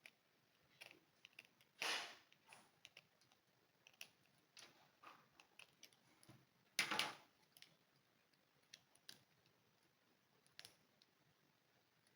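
Small objects being handled on a work surface: scattered light clicks and taps, with two brief louder scrapes about two and seven seconds in.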